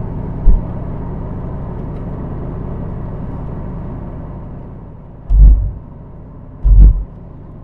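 Road and tyre rumble inside a moving car, easing off about four seconds in, with a short low thud about half a second in and two heavy low thuds near the end.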